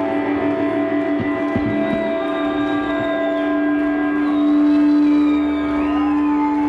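Background music of long held tones that slide slowly in pitch now and then.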